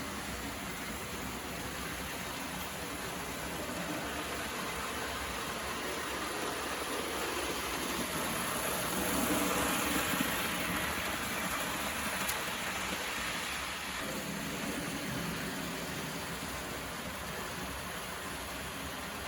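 Märklin model train running on the track, a steady rolling rumble and hiss that grows louder toward the middle and then fades.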